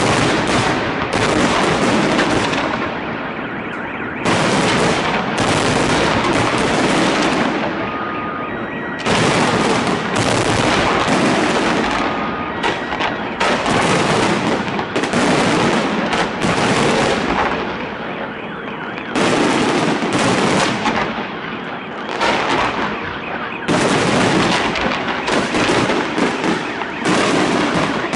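Fireworks display: a dense, continuous run of bangs and crackling as shells burst overhead, swelling into a fresh loud barrage every four to five seconds.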